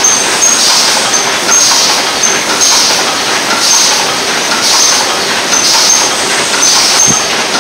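Double-wall paper cup machine running: a loud, steady mechanical clatter in a regular rhythm, with a short hiss about once a second and high ticks in between.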